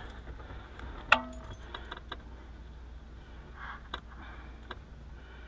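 A sharp metallic clink with a short ring about a second in, followed by a few small clicks and taps: wiring connectors and small metal parts being handled while a wire is switched over.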